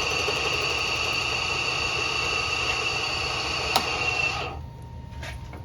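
Bridgeport milling machine running with a steady whine, with a sharp click a little before four seconds in. It shuts off about four and a half seconds in, leaving a low hum and a few light clicks.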